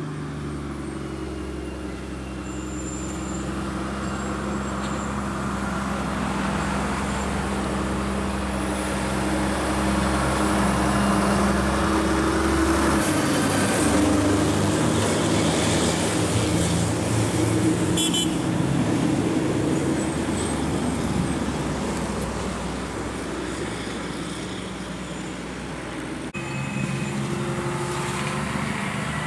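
Heavy diesel trucks passing one after another: a steady engine drone that grows louder toward the middle and changes pitch about halfway through. Near the end it cuts to another truck's engine.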